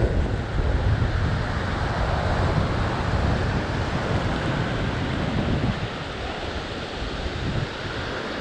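Ocean surf washing onto the beach, with wind buffeting the microphone in a heavy low rumble that eases somewhat about six seconds in.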